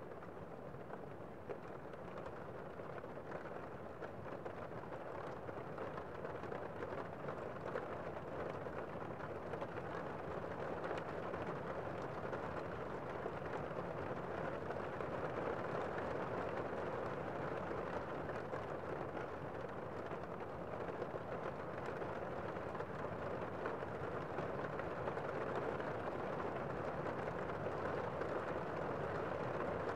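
Steady rain falling, a muffled, even hiss without distinct drops, slowly growing louder.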